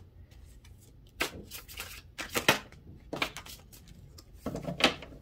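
A deck of cards being shuffled and handled, a string of short sharp card slaps and rustles, loudest about a second in, around the middle and near the end.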